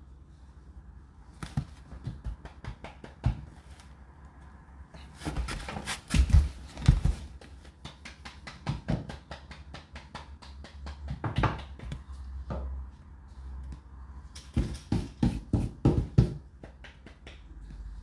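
Indesit IDC8T3 condenser tumble dryer in its cooldown phase: a steady low hum with irregular clicks and knocks in clusters, typical of laundry tumbling in the turning drum.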